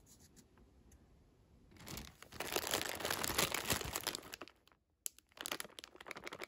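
Crinkling and rustling of packaging being handled, in two spells: a longer one starting about two seconds in, and a shorter one near the end.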